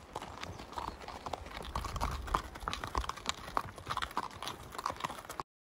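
Riding and pack horses walking on a gravel road: an uneven clip-clop of hoof strikes that cuts off abruptly near the end.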